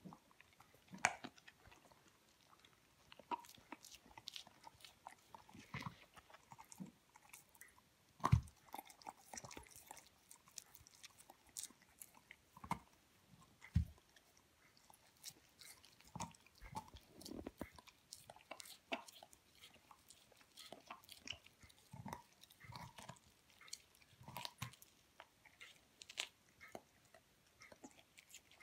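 A young Hamiltonstövare hound gnawing and crunching on a raw chicken leg quarter, with irregular wet bites and crunches and a few louder crunches.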